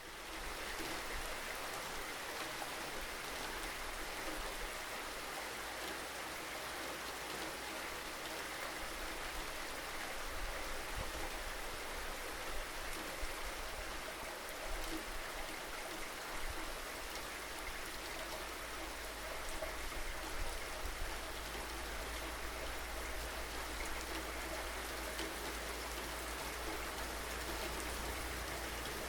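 Steady rain falling, with occasional louder drops and a low steady rumble underneath.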